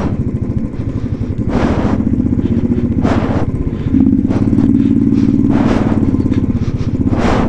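Motorcycle engine running at low speed on a rough, rocky track, its exhaust beat steady; the engine note gets louder about four seconds in and holds for a couple of seconds. A few short clattering noises come in between.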